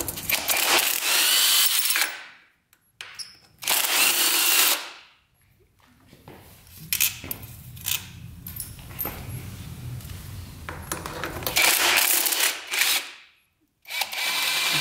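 A power drill spinning in four short bursts of a second or two each, backing fasteners out of a 1986 Honda CR125 engine. Quieter clicks and part-handling noise fill the gap between the second and third bursts.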